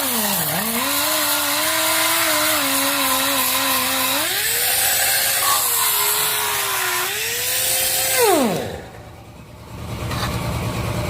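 Repaired 7-inch pneumatic disc grinder running on test, its whine dipping sharply in pitch about half a second in and shifting up and down as the load changes. About eight seconds in it is shut off and spins down with a quickly falling whine; a low steady hum starts near the end.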